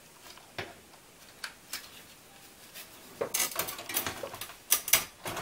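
A graphics card's power cable and plastic connector being handled and pushed into the card's power socket: a few scattered clicks at first, then a dense run of clicking and rattling from about three seconds in.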